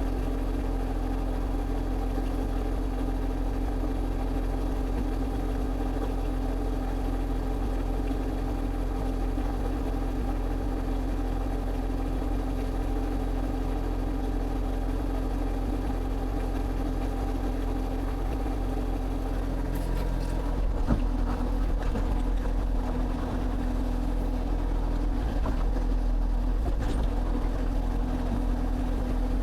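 Excavator engine running steadily; about 20 seconds in the sound changes and grows a little louder, with a few knocks.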